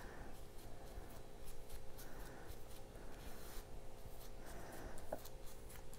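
Brush spreading Mod Podge over a photo on a wood board: faint, repeated soft brushing strokes, with a faint steady hum underneath and a small tick about five seconds in.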